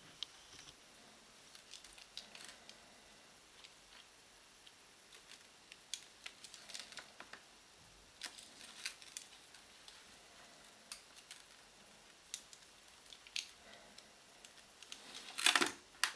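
Faint, irregular small clicks and taps of close-up handling, with a louder rustle near the end.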